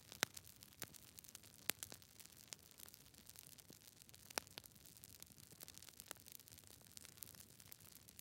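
Wood fire crackling: quiet, irregular sharp pops and snaps, a few of them louder, over a faint low hiss.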